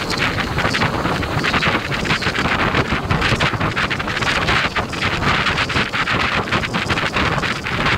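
Wind rushing and buffeting over the microphone of a motorcycle riding at speed, a steady roar with irregular gusts.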